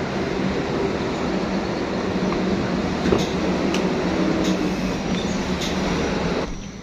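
Steady road-traffic noise with a few light clicks, dropping away sharply near the end.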